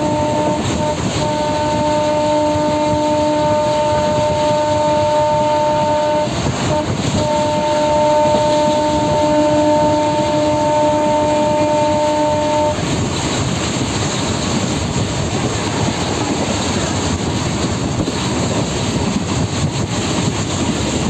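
Moving passenger train heard from inside a carriage: steady rumble and clatter of the wheels on the rails. Over it a train horn sounds one long steady note, broken briefly about six seconds in, that stops about thirteen seconds in, leaving only the running noise.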